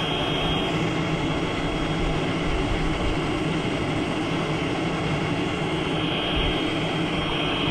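Brazing torch flame burning with a steady, even hiss while heating the copper line joints.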